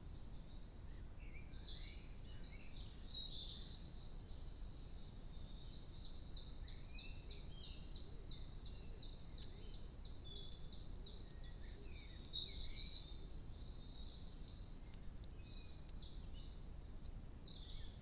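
Small garden songbirds calling and singing, with a quick run of short, high repeated notes, about three a second, in the middle and a louder burst of calls a little later, over a steady low background rumble.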